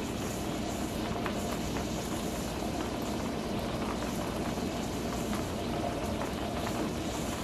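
Stovetop pressure canner heating on a high burner, with a steady, even noise of the water boiling inside as the pressure climbs past 5 pounds toward 10. The weighted regulator is not yet jiggling.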